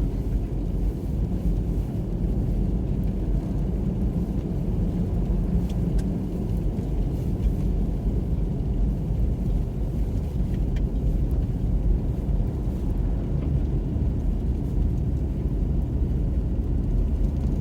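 Steady low road rumble heard inside a car's cabin as it drives slowly on a snow-covered road: tyre and engine noise.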